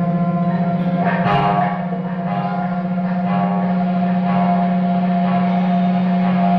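Prepared electric guitars playing an experimental drone: several steady tones held together and ringing like a gong, with a single struck hit about a second in that rings out and fades.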